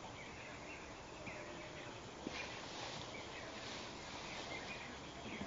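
Birds chirping outdoors in short scattered calls over a steady background hiss of open-air ambience. A single brief click sounds a little over two seconds in.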